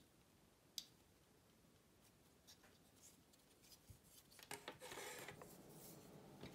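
Faint handling of thin laser-cut plywood model parts: a sharp click about a second in, then a stretch of rustling and scraping near the end as the wooden parts are moved over the tabletop.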